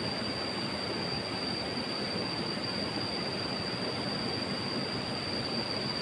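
Steady rushing of river water, with a steady high-pitched whine running over it.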